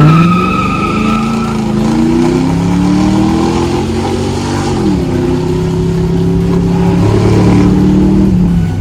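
2001 Mustang GT's 4.6-liter V8 accelerating hard from a launch, with tires squealing in wheelspin over the first second and a half. The revs climb, drop at a gear change about five seconds in, climb again and fall away near the end.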